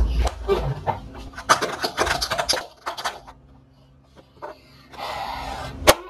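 Plastic toy horse figures tapped and clattered on a wooden floor: a quick run of sharp taps, then a soft breathy rustle and one sharp knock near the end.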